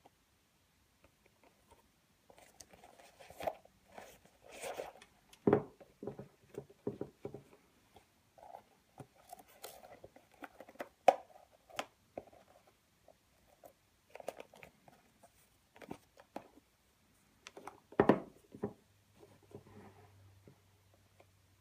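Handling noise from a pair of leather Adidas Predator Absolute football boots: irregular rustles, creaks and light taps as hands work the fold-over tongue and strap, with a few sharper knocks against the table.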